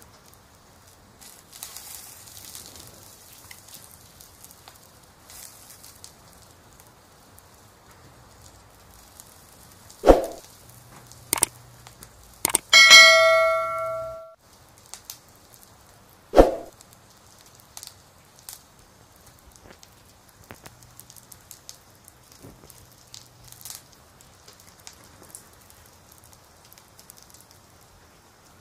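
Subscribe-button animation sound effect: a thump, a couple of clicks, then a bright bell ding that rings for about a second and a half and cuts off abruptly, followed by another thump. Under it, faint crackling of a coconut-shell fire in a wood stove.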